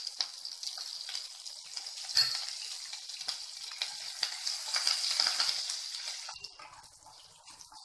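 Fresh curry leaves, cumin seeds and sliced green chillies sizzling and crackling in hot oil in a nonstick pan as they are stirred, with scattered sharp pops. The sizzle dies down about six seconds in.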